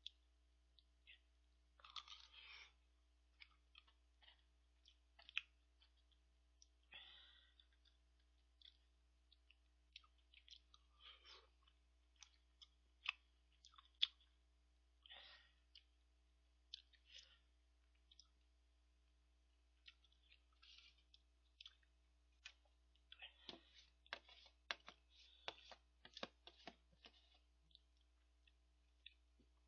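Metal spoon clicking and scraping against a cup-ramen bowl and its lid, with soft chewing. The clicks come scattered, two sharper clinks fall about halfway through, and a busy run of clinks comes late on.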